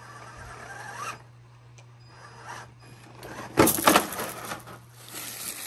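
Laegendary Grando 1:10 scale RC crawler's brushed motor and gear drivetrain whirring as it drives through thick brush. A loud, rough burst of brush noise comes about three and a half seconds in.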